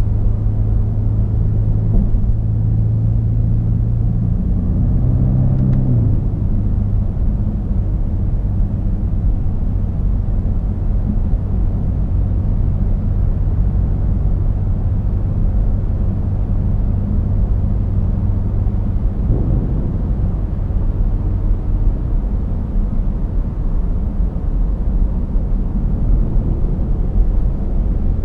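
BMW F90 M5's twin-turbo V8 through a Capristo valved exhaust with the valves open, cruising at steady throttle with a low, steady drone and road rumble. The engine note climbs briefly and drops about six seconds in, and rises again for a moment near twenty seconds.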